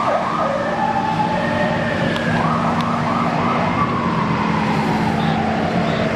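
Emergency vehicle siren sounding: a few quick rising sweeps a couple of seconds in, then a long slow fall and rise in pitch, over a steady low hum.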